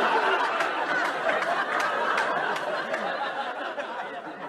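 A crowd laughing, many voices overlapping, dying away over a few seconds.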